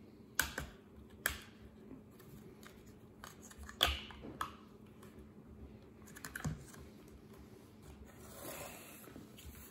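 Light clicks and taps from lithium pouch cells and their connector board being handled and their tabs bent, about five sharp ticks a second or two apart, the loudest near four seconds in, with a soft rustle near the end.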